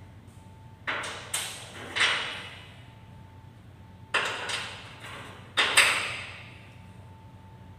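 Sharp knocks on hard parts, each with a short ringing tail, in two groups of about three strikes a few seconds apart, as pieces of a rack are fitted together.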